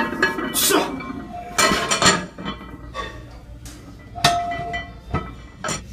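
Cast-iron barbell plates clanking and rattling against the bar and each other, as a series of sharp metallic clinks; one about four seconds in rings briefly.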